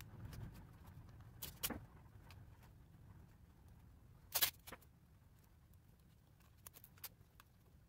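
Scattered sharp clicks and taps, a pair about one and a half seconds in and the loudest about four and a half seconds in, over a faint low rumble.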